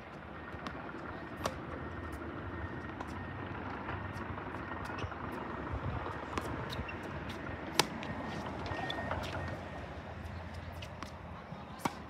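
Tennis rally: sharp pops of rackets striking the ball and the ball bouncing on the hard court, the loudest about eight seconds in and just before the end, over a steady low background rumble.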